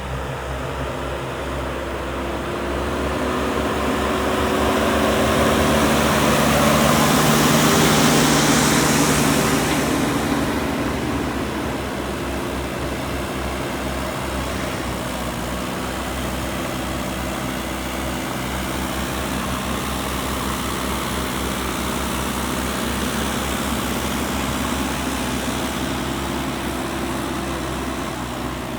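JCB 3DX backhoe loader's diesel engine running steadily. It gets louder for several seconds, with a rushing hiss, as the machine works, then settles back to a steady run.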